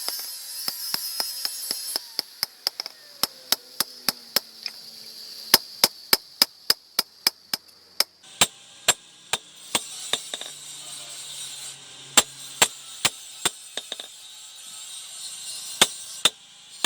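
Repeated sharp blows of hand-tool work, a tool striking wood, coming in irregular runs of about two a second with short pauses between.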